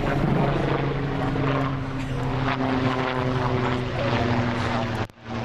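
A steady engine-like drone with a constant low hum. It cuts out briefly near the end.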